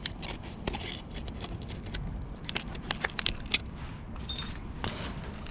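Hands rummaging at a fabric tackle bag: scattered light clicks, taps and rustles as small tackle and plastic containers are handled, with a short high squeak about four seconds in.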